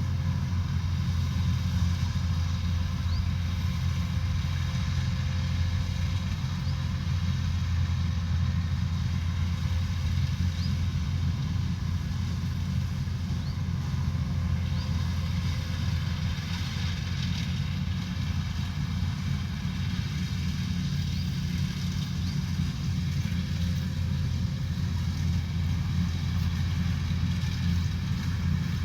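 Rice combine harvester's diesel engine running steadily with an even low drone.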